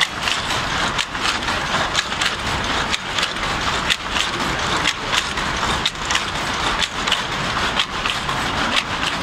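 Power loom running: a steady, loud mechanical clatter of sharp, evenly spaced knocks, several a second, as the loom weaves pick after pick.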